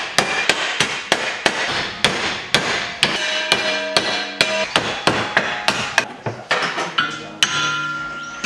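Hammer beating a sheet-metal plate clamped in a bench vise to bend it over into a bracket: quick, regular blows about three a second, the metal ringing after some strikes. The hammering stops about a second before the end.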